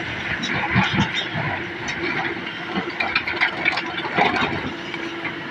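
Komatsu excavator's diesel engine running steadily, with irregular knocks and clatter of rock.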